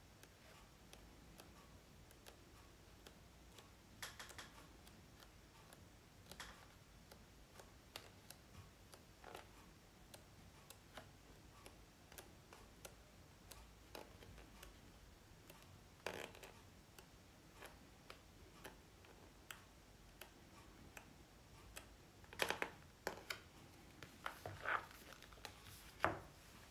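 Quiet paper handling: magazine pages turned by hand, each turn a short rustling swish of paper. Near the end come louder rustles and knocks as the magazine is closed and set down on the wooden table.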